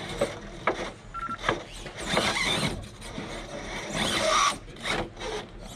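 Small electric motor of a scale RC rock crawler whirring in short bursts as it is driven over the course, with scattered clicks and scrapes between the bursts.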